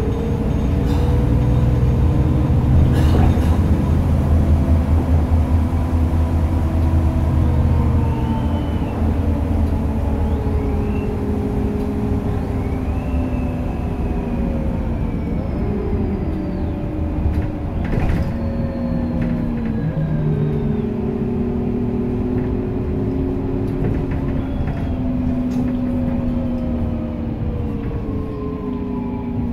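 Cabin sound of a Solaris Urbino 12 CNG city bus on the move: the natural-gas engine and drivetrain run with a deep rumble over the first several seconds, then their tones rise and fall in pitch as the bus changes speed. A couple of sharp knocks from the body come through.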